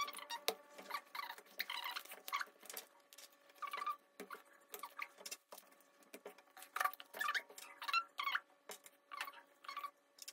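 A paper template and fabric epaulette being handled and pressed with the fingers: irregular short rustles and crinkles of paper, with a few small sharp clicks.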